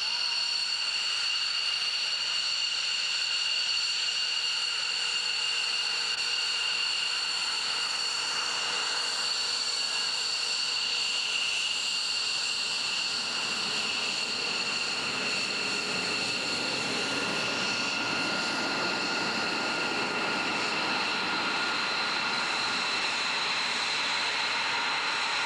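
Fighter jet engines running on the ground, a steady high whine of several tones over a rush of engine noise that swells somewhat in the middle.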